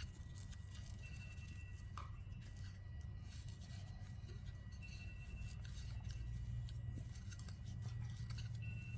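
Faint rustling and small clicks of ribbon being handled and tied into a bow, over a steady low hum.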